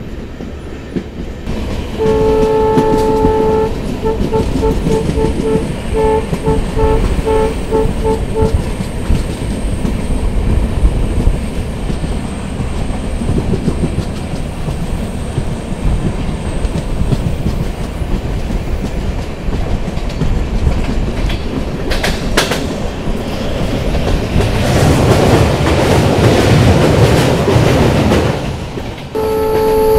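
An EMD diesel locomotive's horn sounds one long blast, then a rapid string of short toots, over the steady rumble and clatter of the train running. The running noise grows louder near the end, and another long horn blast starts just before the end.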